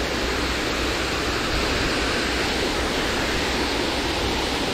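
Steady rush of flowing water, an even noise that holds the same level throughout.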